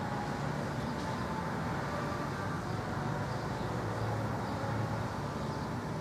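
Steady background noise of distant road traffic, with a low hum.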